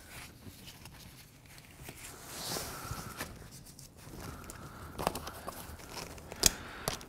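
Handling of a backpack's side pocket and nylon compression strap: fabric rustling and webbing being pulled, with a few sharp light clicks in the second half.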